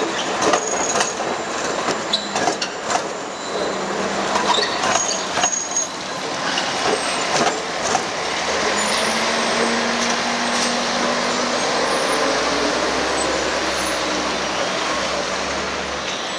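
Metrolink trams and a bus moving through a city street. Knocks and clatters come through the first few seconds, then a steady rumble from about six seconds in as the bus passes close by.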